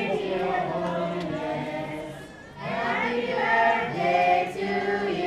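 A group of voices singing together in unison: one phrase, a brief break about two seconds in, then another phrase.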